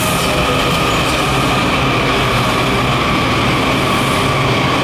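Washington Metro Kawasaki 7000-series subway train running along the platform, its electric propulsion giving a steady whine over a low hum and the rumble of the wheels on the rails.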